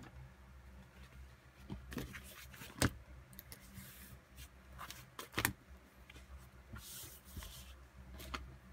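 Leather and fabric pieces being handled, pressed down and slid on a cutting mat: scattered light taps and knocks, the sharpest about three seconds in and another about halfway, with a little rustling near the end, over a low steady hum.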